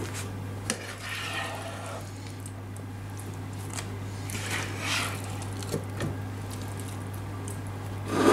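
A plastic cooking spoon scooping saucy goulash from a frying pan into a ceramic baking dish: soft wet squelches and scrapes, with a couple of sharp clicks of the spoon against the pan or dish near the start. A steady low hum runs underneath.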